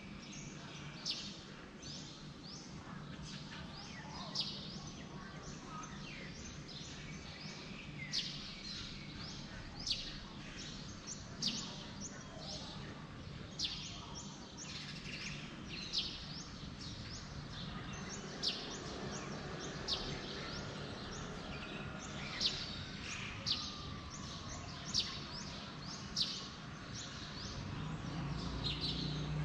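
Birds chirping: short, high chirps that drop quickly in pitch, repeated every second or two over a steady low background hum.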